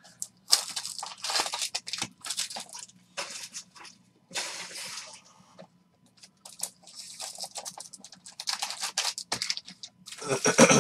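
Card packs and their plastic and foil wrappers rustling, crinkling and tearing as they are handled and opened, in several bursts, the loudest near the end.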